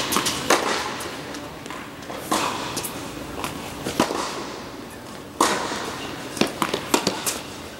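Tennis rally: balls struck by rackets back and forth, each hit a sharp pop that echoes in the large indoor tennis hall, with ball bounces and footfalls between the hits and a quick run of smaller knocks near the end.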